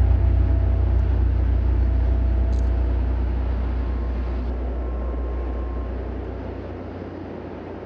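Outdoor road-traffic noise with a deep rumble that fades away over the first six or seven seconds.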